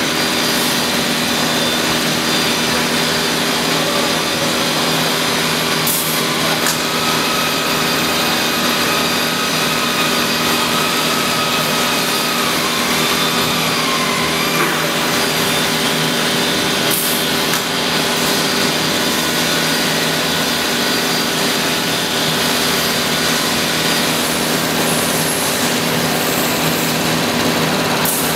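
CNC router spindle cutting into a wooden furniture panel: a steady high whine over the continuous noise of the bit working the wood. The whine dips slightly in pitch about halfway through, and there are a few brief clicks.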